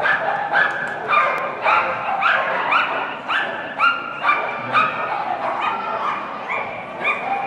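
Miniature Schnauzer barking over and over in short, high, yappy barks, about two a second without letting up.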